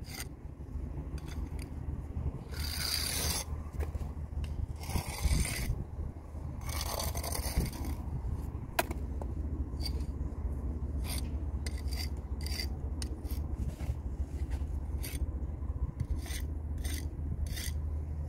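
Steel brick jointer scraping along fresh mortar joints as the joints are tooled: three longer strokes in the first half, then many short, quick scrapes.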